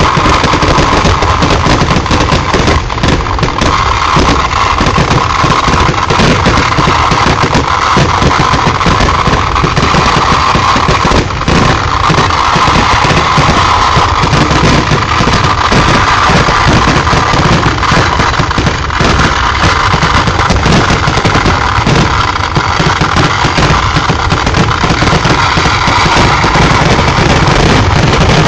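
Kerala temple fireworks (vedikettu) going off in a dense, unbroken barrage: rapid blasts of firecrackers and shells so close together that they merge into one continuous, very loud roar.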